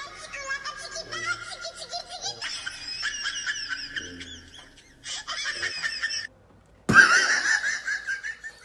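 A girl's high-pitched squealing, giggling laughter, wavering up and down. It breaks off briefly about six seconds in, then comes back louder as a shriek near seven seconds.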